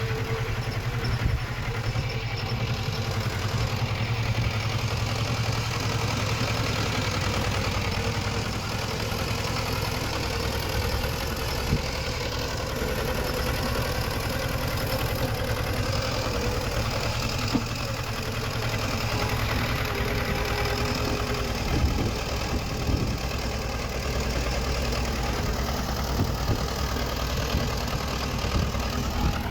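Diesel engine of heavy earthmoving machinery running steadily, with a few brief sharp knocks about halfway through and again about three-quarters of the way in.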